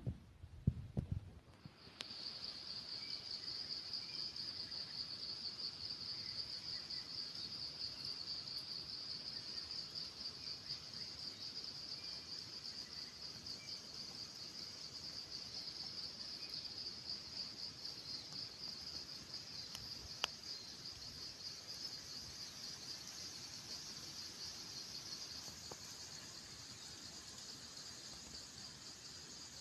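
A few low knocks, then from about two seconds in an insect's continuous high-pitched trill that holds steady, with a single sharp click about two-thirds of the way through.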